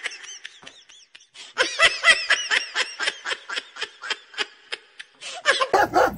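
A person laughing in a rapid run of short bursts, about four or five a second. The laugh starts softly and gets louder about one and a half seconds in.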